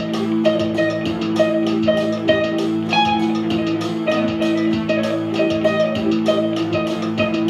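Electric guitar played through a small Fender amp in a steady, even rhythm of picked notes, over an electronic keyboard holding sustained low notes.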